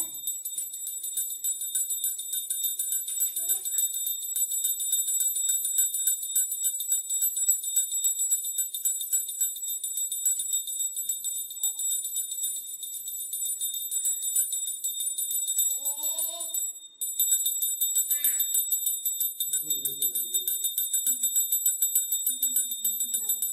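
Brass puja handbell rung quickly and continuously during the aarti, with a short break about two-thirds of the way through. A few quiet voices.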